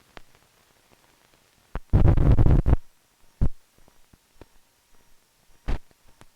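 Clicks and pops from an old film soundtrack. About two seconds in comes a loud, crackling thump lasting under a second, followed by a few single pops, typical of a splice or the leader at the end of a reel.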